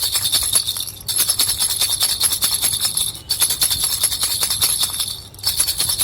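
Baby rattle with two small bells shaken rapidly, a steady jingling with short breaks about a second in, at about three seconds and near the end.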